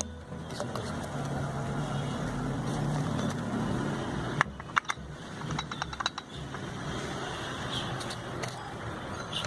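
Steady low rumble of a vehicle engine running in the background, with a few sharp metallic clicks about four and a half to six seconds in.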